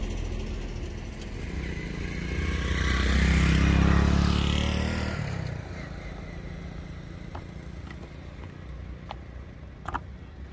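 A motor vehicle passing by on the road: engine and tyre noise swell to a peak about three to four seconds in, then fade away. Afterwards a few faint knocks of footsteps on a wooden plank footbridge.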